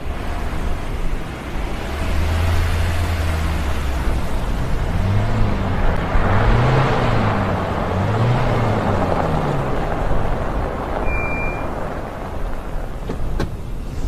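Car driving slowly over snow and pulling up, its engine and tyre noise swelling as it comes closer, loudest about halfway through, then easing off. A couple of sharp clicks near the end as a car door opens.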